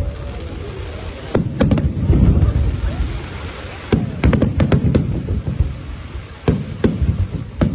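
Aerial firework shells bursting in irregular clusters: sharp bangs in quick runs, each followed by a low booming rumble.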